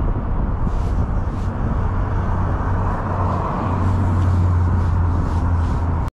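Steady low rumble of city road traffic mixed with wind noise, with no single event standing out.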